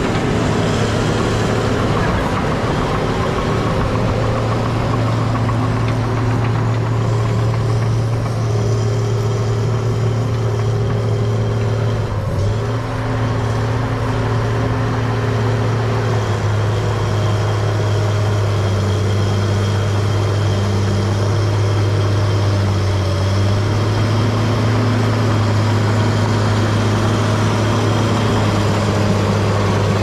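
A John Deere 700J crawler dozer's diesel engine runs steadily as the machine pushes dirt. It dips briefly about twelve seconds in and settles to a slightly lower pitch a few seconds later.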